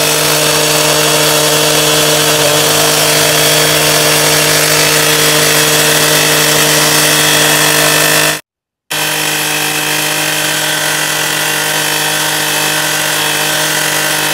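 Two-stroke petrol cut-off saw held at full throttle, its abrasive disc grinding through a steel rail: a steady high engine note under a loud, harsh hissing grind. The disc is a freshly fitted larger one, because the worn-down disc could not cut through. The sound breaks off for half a second a little past the middle, then resumes.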